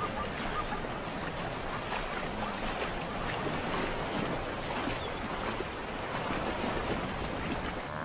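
Wildebeest and zebras splashing and churning through river water as a crowded herd scrambles at the bank, a steady rush of splashes.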